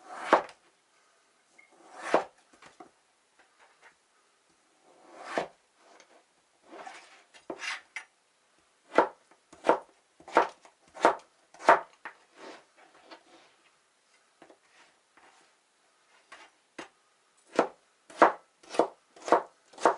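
Kitchen knife chopping potato into cubes on a plastic cutting board: separate knocks, a few spaced out at first, then a quicker run of chops about halfway through and another near the end.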